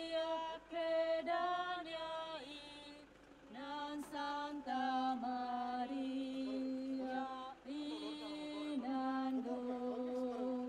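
A woman singing a slow devotional chant into a handheld microphone, holding long notes that step between a few pitches in phrases with short breaks between them.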